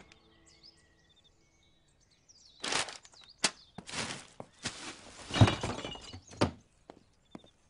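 Faint birds chirping, then paper rustling and being crumpled and shoved into a wheeled plastic trash bin. A heavy thud comes a little past five seconds and a sharp knock about a second later.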